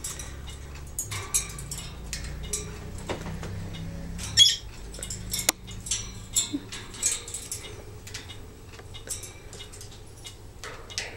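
Timneh African grey parrot climbing about its wire cage, its beak and claws tapping and clinking on the bars and perch in scattered clicks, the loudest about four and a half seconds in. A low rumble runs under the first four and a half seconds.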